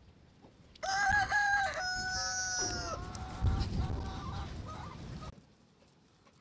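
A rooster crowing once: a long held call of about two seconds starting about a second in, ending on a falling note. A brief low rumble comes just after the crow.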